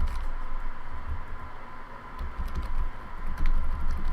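Keys of a Logitech K360 keyboard being pressed one after another to test them: scattered clicks that thicken into a quick run of taps about three seconds in, over a steady faint hum.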